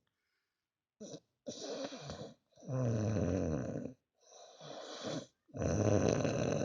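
Heavy snoring in deep breaths: a quieter breath followed by a longer, louder snore with a low drone, twice.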